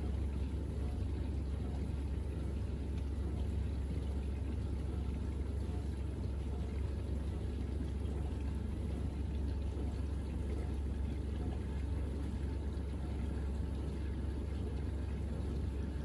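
Bosch dishwasher running partway through its Pots and Pans 70 °C wash: a steady low hum with water swishing and spraying inside.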